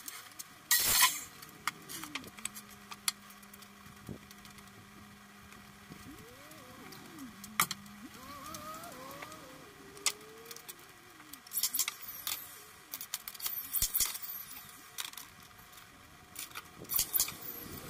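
Scattered knocks and clatters of pine framing boards being handled and fastened, the loudest about a second in. A motor hums steadily for a few seconds, then whines up and down in pitch.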